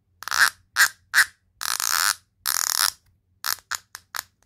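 Freehub of a Tactic TR01 rear bicycle hub turned by hand in short strokes, its pawls ratcheting in about ten quick buzzing bursts, two of them about half a second long near the middle.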